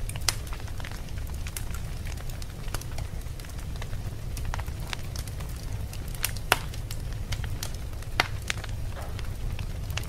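Fire burning with a steady low roar and irregular sharp crackles and pops, a few louder snaps standing out.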